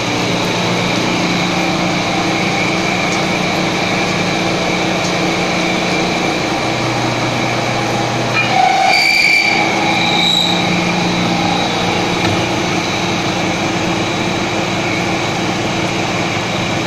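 Surface grinder running with coolant spraying: a steady grinding noise with a high whine over a low machine hum, briefly louder and shifting in pitch about nine seconds in.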